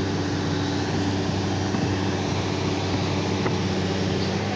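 Kobelco hydraulic excavator's diesel engine running steadily close by, an even low drone.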